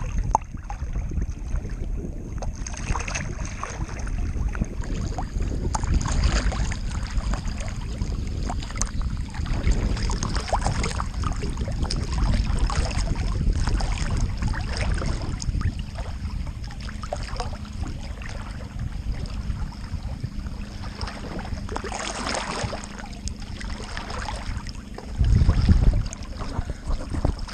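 Water sloshing and splashing against an action camera's housing at the waterline, with wind buffeting the microphone. A heavier splash comes near the end.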